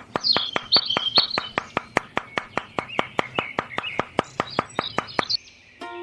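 Rapid, evenly spaced clicking or tapping, about five a second, with birds chirping over it. The clicking stops shortly before the end, and music starts.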